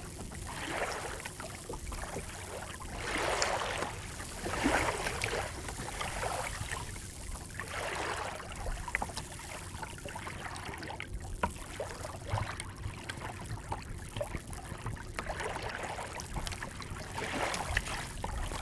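Water swishing and lapping along the hull of a small wooden sailing dinghy under way, coming in uneven surges every second or two, with a few faint ticks.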